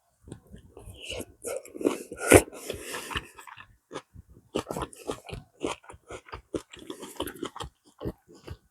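Chewing food close to the microphone: irregular crunches and wet mouth clicks, a few louder bites about two seconds in.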